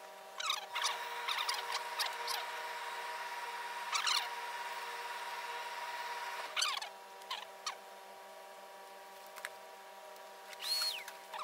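Hose-fed steam iron hissing steadily as it presses, with louder spurts of steam about half a second, four and six and a half seconds in. Near the end, a few short snips and a squeak of tailor's shears cutting.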